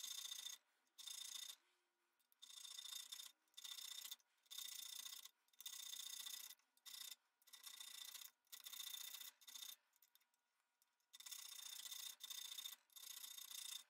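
Narrow hand-made file cutting the thread into the steel lead screw of a hand-forged auger bit: faint, short rasping strokes about a second apart, with a brief break about ten seconds in.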